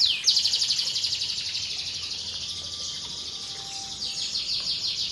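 Canary singing: a few quick downward-sweeping whistled notes open into a long, fast, rattling trill held for about four seconds, with a run of rapid down-slurred notes near the end.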